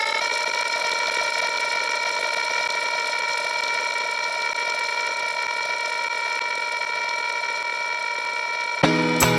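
A steady, buzzy electronic tone held on one pitch, stepping up slightly at the very start. Near the end it cuts abruptly to music with sharp, punchy beats.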